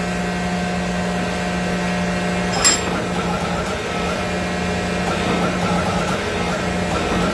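A steady low machine hum, with a single sharp metallic clink about two and a half seconds in.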